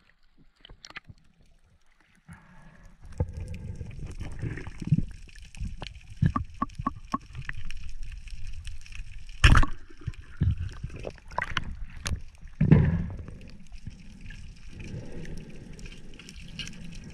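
Underwater sound picked up by a camera in its waterproof housing as a diver swims: a steady rush and rumble of moving water with scattered small clicks and crackles. Two loud knocks stand out, about nine and a half and twelve and a half seconds in. The first two seconds are nearly quiet.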